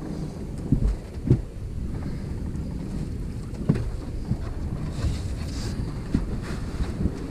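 Wind buffeting the microphone as a steady low rumble, with a few sharp knocks about a second in, near four seconds and again near six, from a large blue catfish and the landing net being handled in the boat.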